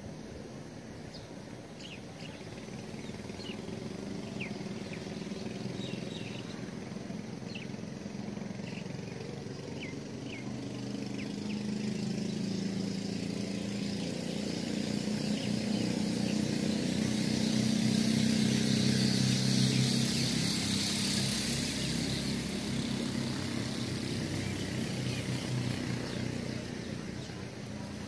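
A motor vehicle engine passing by: its low running sound swells gradually to a peak about two-thirds of the way through, then fades. Small birds chirp briefly in the first third.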